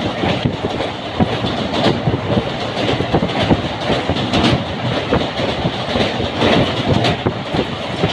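Train running across a steel truss railway bridge: wheels clattering over the rails with a steady, loud rumble and many irregular knocks.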